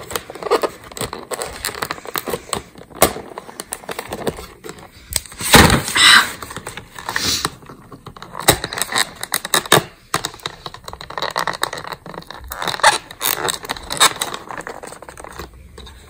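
Long fingernails scratching, tapping and picking at the cardboard door of a Kinder advent calendar, struggling to prise it open. Irregular scrapes and clicks, with a louder scraping stretch about five to seven seconds in.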